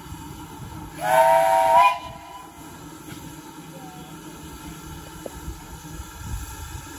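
Steam locomotive whistle: one short blast of just under a second, about a second in, rising slightly in pitch.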